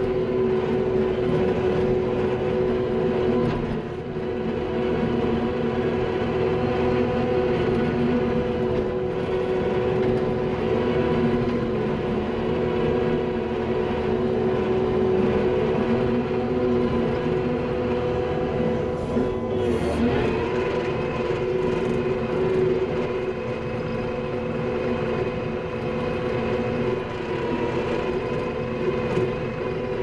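Skid steer's diesel engine running steadily under load, heard from inside the cab, with the hydraulics driving a power rake adding a steady whine over the engine's rumble. The whine dips briefly about two-thirds of the way through, then returns.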